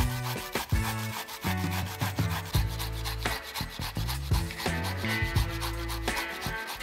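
Red onion rubbed back and forth on a stainless steel hand grater: a quick run of rasping, scraping strokes, with background music underneath.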